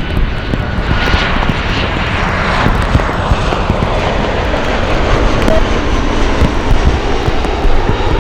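Jet airliner engines passing close by: a loud rushing roar with a whine that starts falling in pitch about a second in, over a low rumble.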